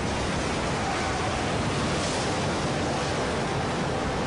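A steady rush of storm noise: heavy rain, wind and splashing floodwater.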